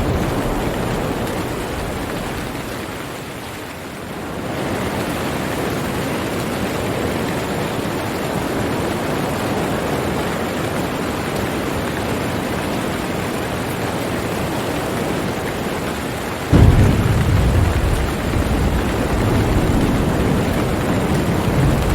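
Steady rain hiss with thunder; a deep rumble of thunder comes in suddenly about three quarters of the way through and keeps rolling.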